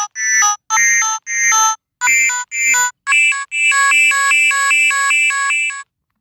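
Canadian emergency alert tone altered by a voice-changer app and played through a phone speaker: a string of short separate electronic notes at shifting pitches, then a fast two-tone warble at about four changes a second that stops abruptly near the end. Altered this way it resembles the Venezuelan EAS alarm.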